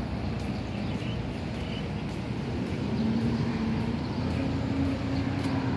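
Road traffic running steadily along a city street, with a steady engine hum coming in about three seconds in.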